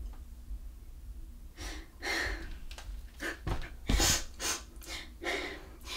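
A woman crying: irregular sniffs and gasping breaths, several in a row.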